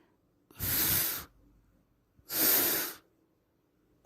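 A woman's voice making the long hissing 'fff' sound of the letter F, twice, each under a second long, with a third beginning right at the end.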